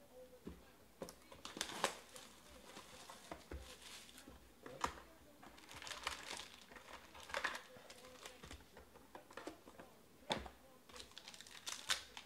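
Hands handling a cardboard trading-card box and foil-wrapped card packs: irregular crinkling and rustling of the wrappers with scattered light taps and clicks.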